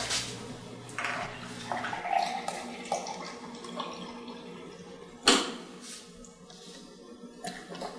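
Water being poured into a drinking glass, with small clinks and knocks of glass on glass and counter, and one sharp knock about five seconds in.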